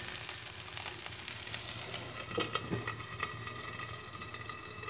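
Oil sizzling and crackling under a wheat-flour roti on a hot tawa. About two and a half seconds in, there are a couple of light knocks as a steel lid is set over the pan, and the sizzling is quieter after that.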